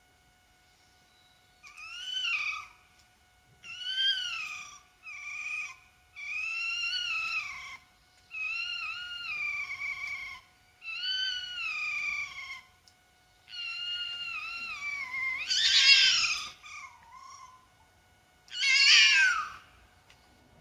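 Red fox calling: a run of about ten drawn-out, cat-like calls, each bending down in pitch, with the loudest and harshest two near the end. A faint steady hum runs underneath.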